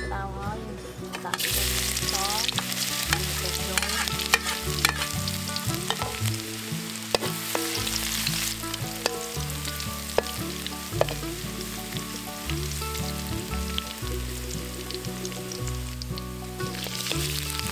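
Chopped garlic and red chili sizzling in hot oil in a wok, the sizzle starting about a second and a half in as they hit the oil. A metal spatula stirs them, scraping and clicking against the wok.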